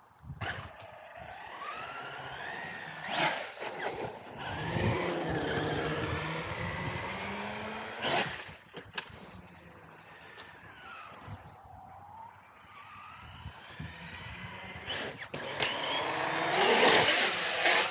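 Traxxas Sledge radio-controlled monster truck driving on concrete: its brushless electric motor whines, rising and falling in pitch as it speeds up and slows, over the rush of its tyres. A few sharp knocks come along the way, and the sound is loudest near the end.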